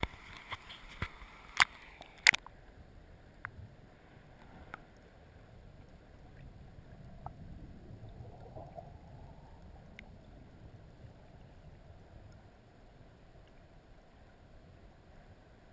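Creek water running steadily over rocks, with a quick series of sharp clicks and knocks in the first couple of seconds and a few faint ticks later.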